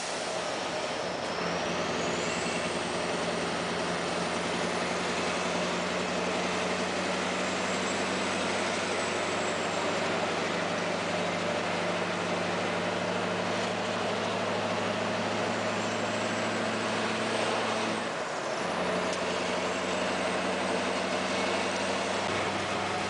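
Scania R560's V8 diesel engine running steadily under way, heard from inside the truck's cab with road noise. The engine note briefly drops out about eighteen seconds in and then picks up again.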